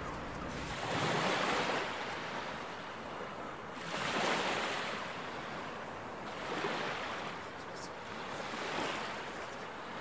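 Dishwasher running its power scrub wash cycle: water spraying and sloshing inside the tub. It comes as a steady rush that swells and fades every two to three seconds.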